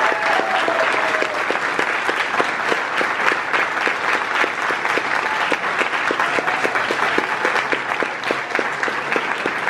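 Audience applauding steadily, a dense patter of many people clapping.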